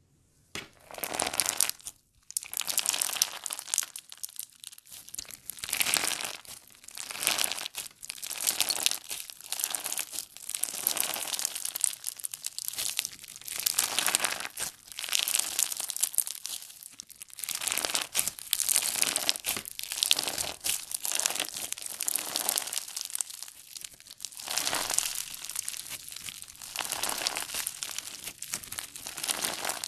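Crunchy slime being squeezed and pressed by hand, crackling and crinkling in repeated swells every second or two. It starts about half a second in, after a moment of near silence.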